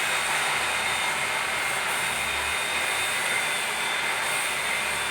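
Small bench drill press running steadily, a constant motor hum with a thin high whine.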